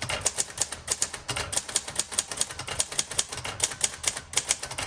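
1957 Royal Quiet Deluxe manual typewriter being typed on quickly: a steady stream of key strikes, several a second.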